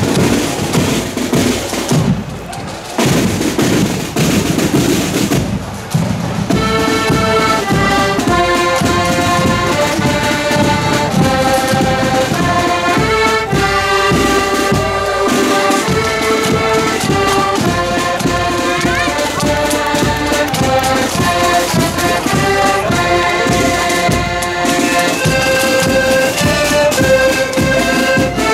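Marching accordion band playing a march. A drum beat sounds alone for about the first six seconds, then the accordions come in with the melody over it.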